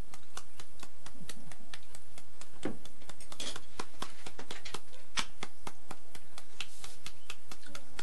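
Kitchen knife chopping again and again into a peeled green papaya held in the hand, about four quick sharp clicks a second, scoring the firm flesh into thin strips for shredding.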